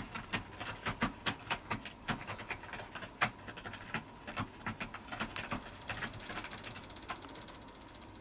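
Quick, irregular soft clicks and scratches, several a second, from a young cat moving about on a quilted bed cover; they thin out near the end.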